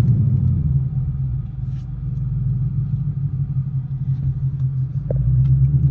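Ford Mustang GT's 5.0-litre V8 running at low revs, a steady, even, low engine note heard from inside the cabin.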